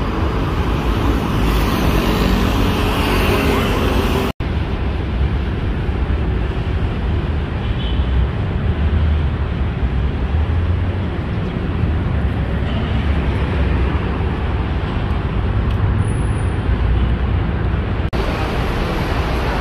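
Steady city street traffic: a continuous hum of passing vehicles, broken by a split-second gap about four seconds in.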